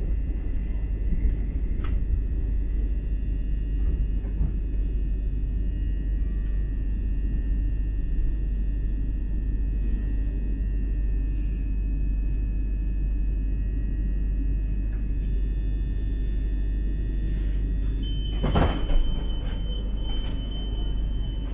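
Cabin noise aboard a c2c Class 357 Electrostar electric multiple unit slowing to a stop at a station platform: a steady low rumble with a faint steady whine above it. Near the end a short loud burst of noise comes, then a steady high tone begins.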